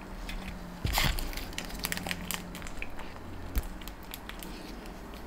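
Plastic icing piping bag crinkling and crackling as it is handled, with a soft knock about a second in and another about three and a half seconds in.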